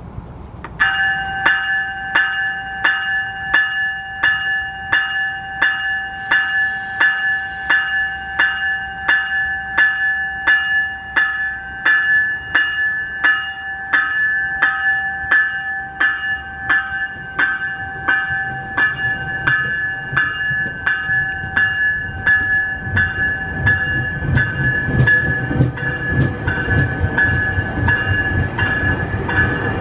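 A bell ringing in an even rhythm, about three strokes every two seconds, as a COASTER push-pull commuter train departs the station cab car first. Its low rumble builds from about two-thirds of the way in.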